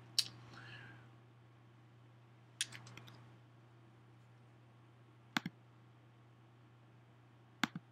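A few sharp computer mouse clicks over a faint steady low hum: a single click just after the start, a short cluster about two and a half seconds in, and quick double clicks about five and a half seconds in and near the end, as the screen-recording menu is opened to stop recording.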